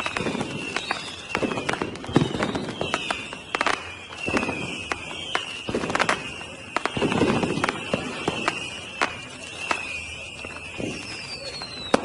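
Fireworks going off: a rapid series of sharp bangs and cracks with deeper booms every second or so. A high whistling tone runs under them, dipping in pitch again and again.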